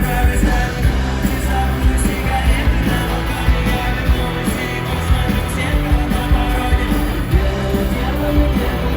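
Live acoustic rock song: a singer over the band's instruments, played loud and continuous.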